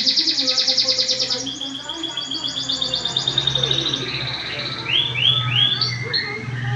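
Domestic canary singing a long rolling song: fast, high trills in several rolls, each roll a little lower in pitch, then three quick slurred falling notes about five seconds in. A faint low hum runs underneath.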